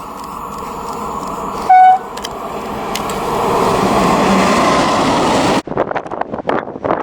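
A single short blast of a train horn about two seconds in, loud over the rushing noise of a passing train that grows louder. Near the end the sound cuts abruptly to a choppier, gusting noise.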